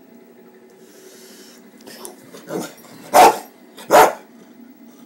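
A dog on the bed barking: one softer bark about two and a half seconds in, then two loud, sharp barks under a second apart.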